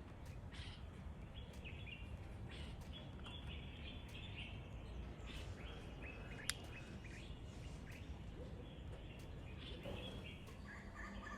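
Birds chirping faintly over a steady low background hum, with one sharp click about halfway through.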